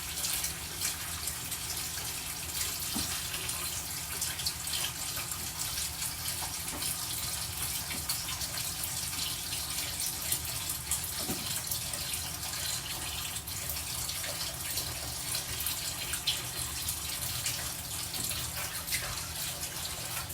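Water running steadily from a tap into a sink, a continuous rush, as a soapy cleaning towel is rinsed.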